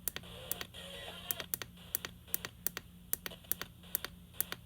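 Computer keyboard typing: irregular key clicks, several a second, close to the microphone.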